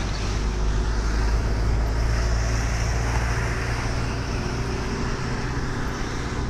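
Steady engine rumble and road noise heard inside the cabin of a moving vehicle: a deep, even low rumble under a broad hiss of tyres on the road.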